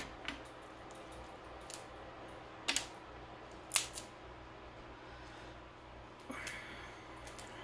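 Cooked crab shell being cracked and picked apart by hand: a handful of short, sharp cracks and clicks with quiet gaps between them, the loudest about three and four seconds in.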